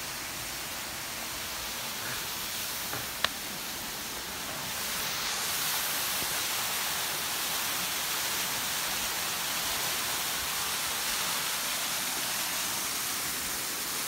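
Waterfall: a steady rush of falling water that grows a little louder about four to five seconds in. There is one brief sharp click about three seconds in.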